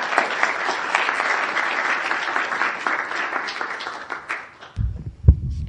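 An audience applauding at the end of a talk, the clapping fading out after about four and a half seconds. Near the end come low rumbling thumps.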